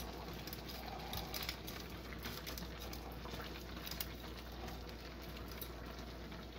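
Broth simmering under dry bihon rice noodles in a frying pan over a gas flame, a soft steady bubbling and crackling, with a few light ticks as a metal ladle presses the noodles down.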